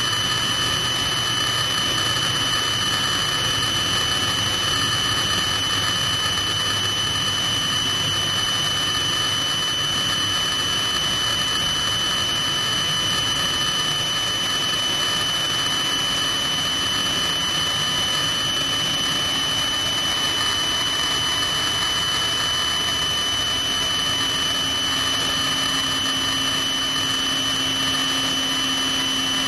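Military helicopter's turbine engine running on the ground, a steady high-pitched whine; a lower hum comes in about halfway through.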